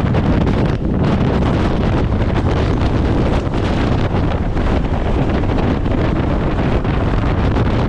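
Gale-force mountain wind, over 35 m/s, buffeting the microphone: a loud, steady low rumble that flutters with the gusts.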